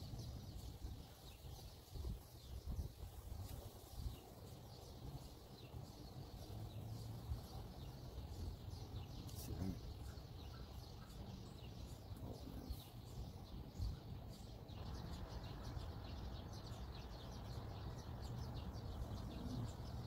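Quiet outdoor ambience: a low steady rumble with birds chirping faintly, and a few light clicks from small brake-pad hardware being handled at the caliper bracket.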